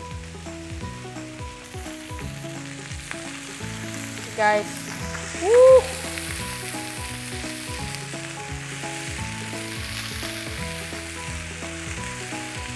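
Chicken pieces sizzling in hot garlic butter in a grill pan while they are turned with tongs. The sizzle grows louder about two seconds in.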